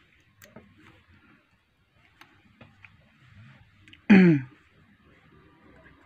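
Faint scattered clicks of tweezers working the flex-cable connectors on a Samsung Galaxy Tab E circuit board. About four seconds in comes a short vocal sound from the person, falling in pitch, the loudest thing heard.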